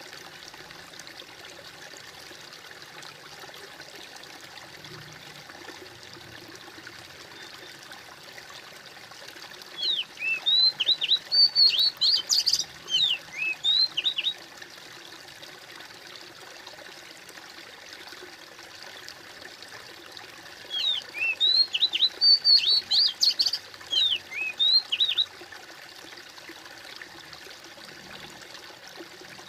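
Steady trickling stream water, with a songbird twice singing a phrase of rapid high chirps lasting about four seconds each, about ten seconds in and again about twenty-one seconds in. The bird song is the loudest sound.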